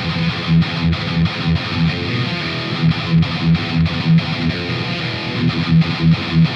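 Electric guitar played through a Mooer Micro PreAmp 012 Fried-Mien on Channel B, cab sim off, into a Marshall 1960 4x12 cabinet with Celestion G12M speakers: a distorted rhythm riff with repeated low chugging notes.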